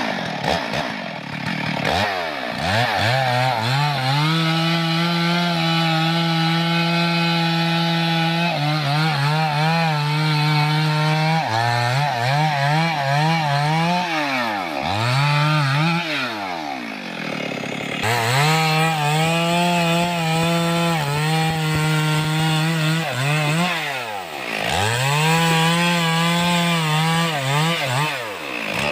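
Two-stroke chainsaw cutting through logs, held at high revs for several seconds at a time. Its engine pitch drops and climbs back about five times between cuts.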